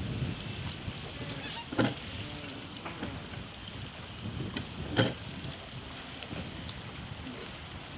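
Wind rumbling on the microphone over water sounds aboard a small RS Zest sailing dinghy, with two sharp knocks about a second and a half and five seconds in.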